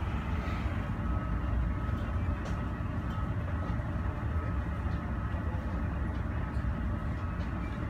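Steady low rumble of airport apron noise with a faint, constant high whine, unchanging throughout.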